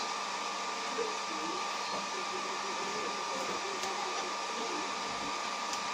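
A steady whirring hiss with a constant hum, like a running appliance, under faint, short, wavering whines and grunts from Staffordshire Bull Terrier puppies at play.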